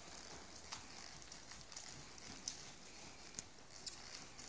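Faint, muffled hoofbeats of a ridden horse moving over the sand footing of an indoor arena, heard as scattered light clicks and thuds.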